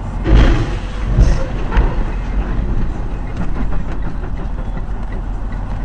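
Steady road and engine noise inside a car, with three heavy thumps in the first two seconds as a tractor-trailer crashes across the highway just ahead.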